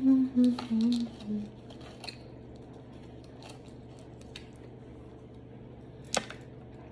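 A few hummed notes at the start, then scattered small cracks and snaps of crab-leg shell being broken open and picked apart by hand, with one sharper crack near the end.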